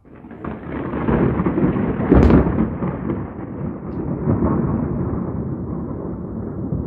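Thunder from a close lightning strike: a rumble that builds quickly, a sharp crack about two seconds in, then a long, loud rolling rumble that keeps going.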